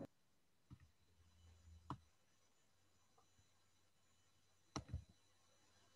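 Near silence: faint room tone with a few short clicks, one about two seconds in and a pair near five seconds.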